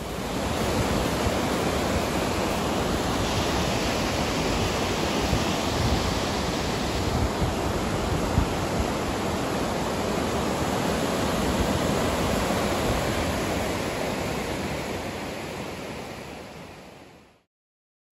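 Rapids of the Merced River rushing over boulders: a steady rush of fast-moving water, fading out over the last few seconds.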